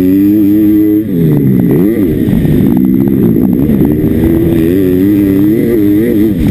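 Pit bike engine at racing revs, heard close from the bike itself. About a second in the revs drop sharply and the note falls away, then they climb back and hold high with small rises and dips through the rest of the run.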